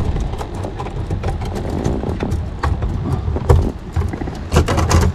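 Low, uneven wind rumble on the microphone, with scattered knocks and clicks from gear being moved about in the boat, several louder knocks near the end.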